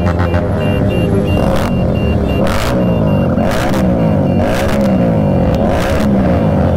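Motorcycle engines in a group ride revving over and over, each rev falling away about once a second. A short high beep repeats steadily underneath.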